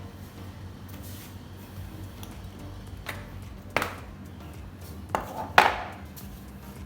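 Four sharp metallic clinks and knocks, the last the loudest, over quiet background music.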